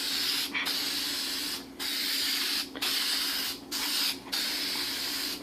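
Spray paint hissing out of a nozzle in long spurts, with short breaks between passes about every second.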